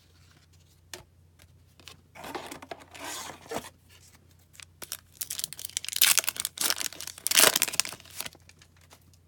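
Hockey card pack wrapper being torn open and crinkled by hand. There is a stretch of rustling about two seconds in, then a louder run of tearing and crinkling from about five to eight seconds in.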